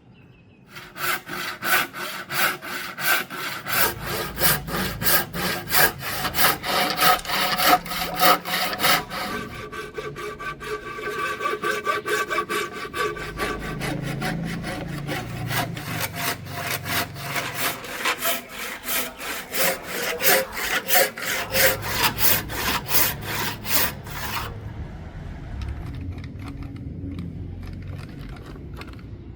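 Hand saw cutting through wood in steady back-and-forth strokes, about two a second, stopping abruptly near the end and followed by quieter handling noise.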